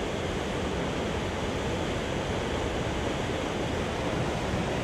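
Whitewater river rapids rushing: a steady, even wash of water noise.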